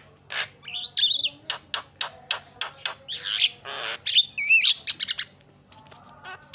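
Javan myna (jalak kebo) chattering: a rapid run of harsh squawks and clicks, a few every second, mixed with whistled notes that slide up and down, falling quiet about five seconds in.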